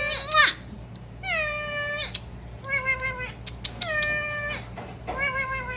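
Indian ringneck parrot giving about five drawn-out, meow-like calls, each sliding down in pitch, the sound of a bird upset at having his drawing touched.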